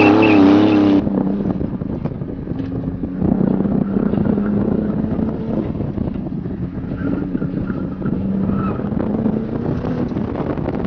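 Porsche 911 Turbo's twin-turbocharged flat-six engine, loud with a wavering pitch as the car drives past in the first second, cutting off abruptly. Then the same engine heard from inside the cabin, running at low, fairly steady revs, a little louder from about three seconds in.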